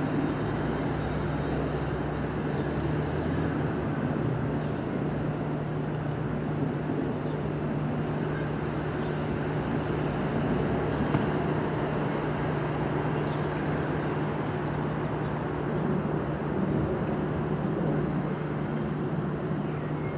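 A steady low hum under even background noise, with a few brief high chirps.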